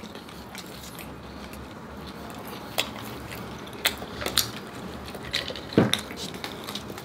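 Close-miked eating sounds: sharp clicks and crackles, about seven of them scattered through the second half, over a low steady room hum.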